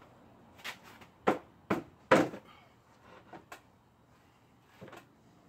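Sharp wooden knocks and clacks from a wooden face vise being fitted: the chop and the screw's handle knocking against the bench. Four knocks come in the first two and a half seconds, the loudest about one and two seconds in, followed by a few lighter clicks.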